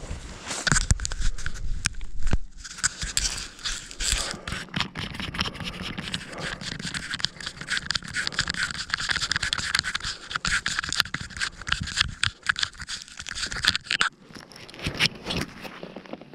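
Close handling noise: rapid, irregular scraping and crackling as the camera's microphone rubs against snow-covered fabric.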